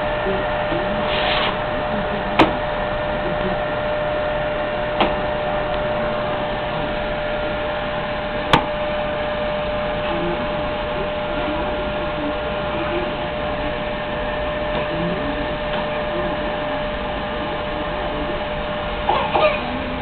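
Canister vacuum cleaner running steadily with a constant hum, with a few sharp knocks in the first half as the wand and hose are pushed about. Brief toddler voices near the end.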